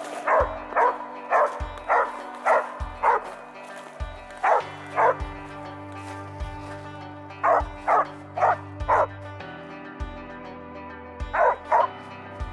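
A hunting dog barking, short barks repeated often in pairs, over background music with a slow steady bass beat.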